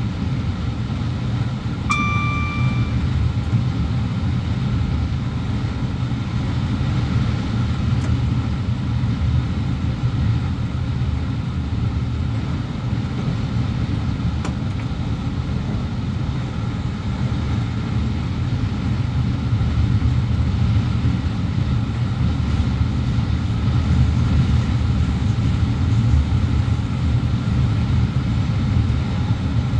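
A Class 350 electric multiple unit running along the line, heard in the driver's cab as a steady low rumble of wheels and running gear that grows slightly louder toward the end. About two seconds in, a single electronic beep sounds in the cab for about a second.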